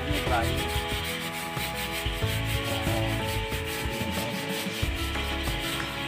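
Stiff plastic brush scrubbing a wire bird cage in quick back-and-forth strokes, the bristles rasping over the metal mesh.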